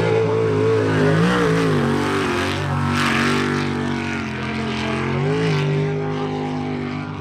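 Jet sprint boat engine running hard, its pitch rising and falling again and again as the throttle is worked through the course. A short rushing hiss comes about three seconds in.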